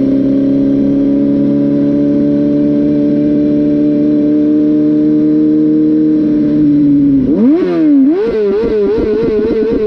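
Sport motorcycle engine running at a steady cruise, its pitch creeping up slightly. About seven seconds in it gives way to a wavering, sliding tone like distorted electric guitar music.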